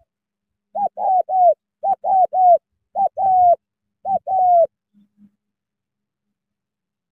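Spotted dove cooing: four phrases of falling coos, the first two of three notes and the last two of two notes ending in a longer drawn-out coo, over about four seconds.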